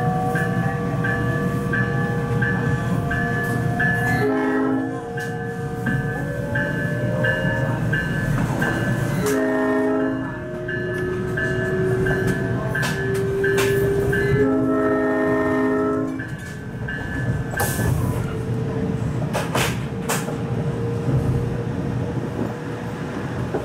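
South Shore Line electric train under way: its horn sounds three times, the last blast longest, over a bell dinging about twice a second that stops near the end. Underneath run the rumble of the cars on the rails and a slowly rising electric motor whine as the train picks up speed.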